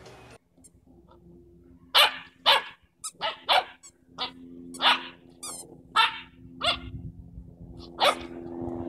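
A dog barking: about nine short barks at uneven intervals, starting about two seconds in and stopping shortly before the end.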